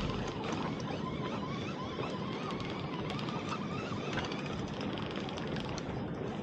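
Steady wind and sea noise, water moving against the hull of a small open boat drifting at sea.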